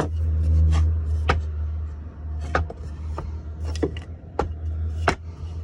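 Wooden boards knocking and clacking against each other as they are handled and shifted, about five sharp knocks spaced through, over a steady low rumble.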